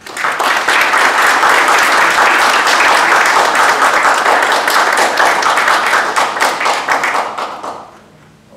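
Audience applauding, starting suddenly and dying away over the last second or so.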